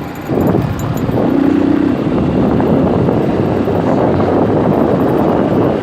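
Motorcycle in motion on a dirt road: a Honda Titan 150's single-cylinder engine running steadily under wind rush on the microphone, with a short humming note about a second and a half in.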